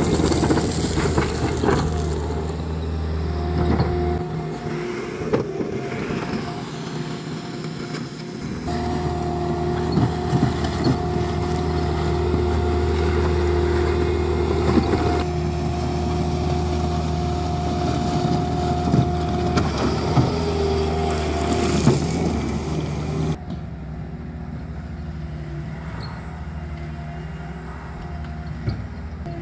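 Bobcat T66 compact track loader's diesel engine running steadily, with repeated clanks and knocks from the bucket and tracks as it dumps and spreads crusher run gravel. Near the end the machine sounds quieter and more distant.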